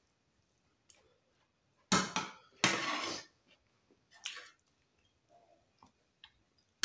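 A metal spoon clinking and scraping against a ceramic serving plate: a sharp clink about two seconds in, a short scrape right after, a softer scrape around four seconds, and another clink near the end.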